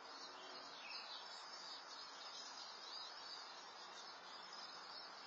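Faint outdoor ambience through a security camera's microphone: a steady hiss with small birds chirping in the background, a cluster of short high chirps about a second in and a few more later.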